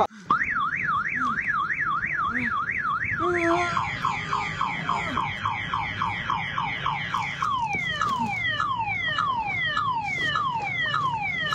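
Electronic siren cycling through its tones: a fast up-and-down wail of about three sweeps a second, then a rapid run of falling chirps about three seconds in, then slower falling whoops about three times a second from about halfway.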